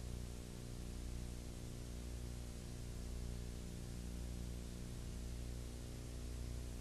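Steady electrical hum with a stack of overtones under a constant hiss, with no other sound: the background noise of a silent home-movie transfer.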